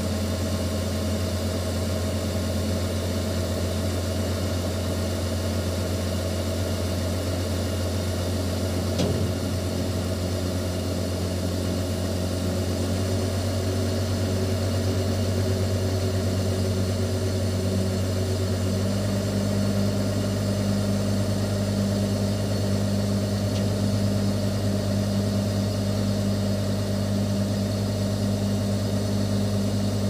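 Engine of the crane lifting a steel road roller, heard from inside its cab, running steadily; its note changes about two-thirds of the way through, and there is one brief click about a third of the way in.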